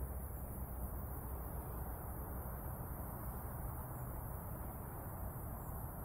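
Steady low rumble, like wind on the microphone, with no distinct events.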